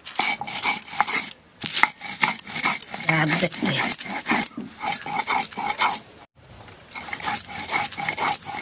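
Stone grinder (sil-batta) rubbing back and forth over a flat stone slab, crushing mustard seeds and green chilli into a wet paste in a run of scraping strokes, with two short pauses.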